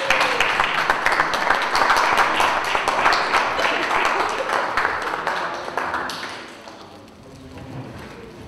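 Audience applauding, many hands clapping at once, dying away after about six or seven seconds.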